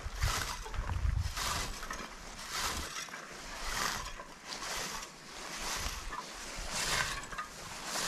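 A hand-made cranberry scoop combing through bog moss and cranberry plants, making repeated rustling swishes roughly once a second.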